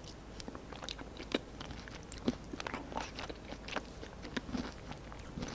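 Close-miked chewing of a mouthful of ice cream with chocolate-coated peanut pieces, with irregular small crunches as the nuts break.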